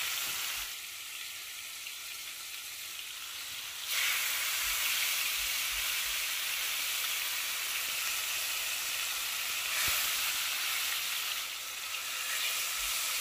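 Marinated beef skirt steak sizzling as it sears in hot oil in a frying pan. The sizzle grows clearly louder about four seconds in, as more meat goes into the pan.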